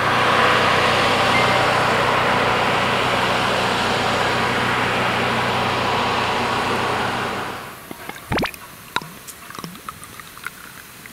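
Snowplow running with a loud, steady hiss and low engine hum, fading away about seven and a half seconds in as it drives off. Then, much quieter, beer glugging from a glass bottle into a glass near the end.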